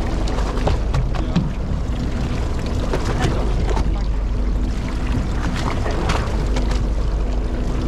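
Steady low rumble of a fishing boat's engine, with wind on the microphone and scattered small clicks and knocks.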